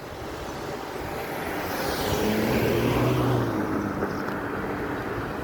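A motor vehicle passing close by on a road: engine and tyre noise swell to a peak about two to three seconds in, then fade.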